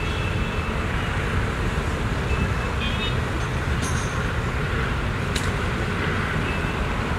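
Steady low outdoor rumble, with a few faint short high chirps and a couple of small clicks in the second half.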